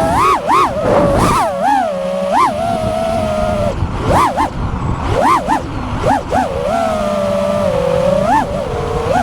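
FPV quadcopter's brushless motors and propellers whining, the pitch sweeping sharply up and down with throttle punches and holding steady for a second or two in between.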